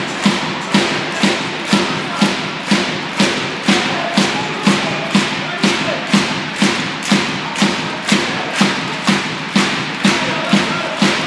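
A supporters' drum beaten at a steady two beats a second, over the noise of the crowd in a handball arena.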